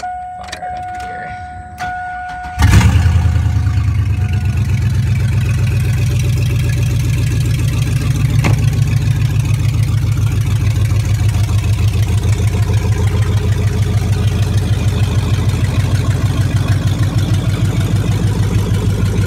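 A steady electronic tone sounds for a couple of seconds, then the pickup's LS V8 cranks and catches suddenly, flares, and settles into a loud, steady idle. It runs without catalytic converters, which makes it loud.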